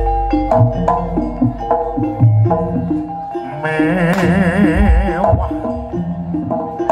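Live jaranan (kuda lumping) gamelan music: hand drums beating under ringing pitched tones, with a wavering, vibrato-laden melody line that comes in about midway and drops out just past five seconds in.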